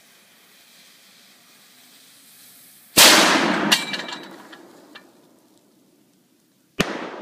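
Faint hiss of burning fuse, then about three seconds in a 50 mm black powder cannon fires with a loud blast that dies away over about two seconds. Near the end a second, sharper bang: the launched stick of dynamite exploding down range.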